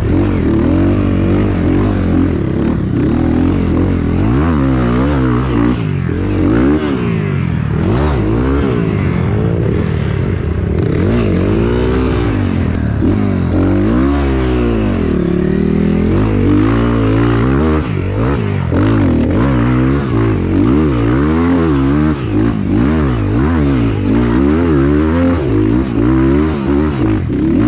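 Motorcycle engine running hard, its pitch rising and falling over and over as the throttle is opened and closed.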